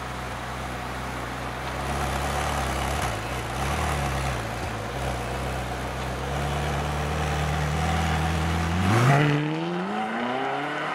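Ferrari California's 4.3-litre V8 idling steadily through its exhaust, with a slight rise and fall in revs a few seconds in. About nine seconds in the car pulls away and the revs climb steadily.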